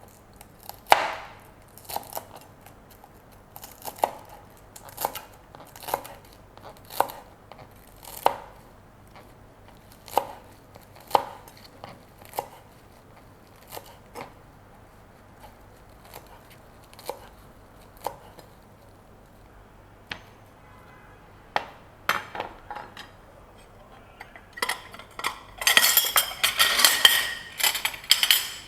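Kitchen knife cutting coriander on a cutting board: single chops about one a second, then a quick run of clattering strokes near the end.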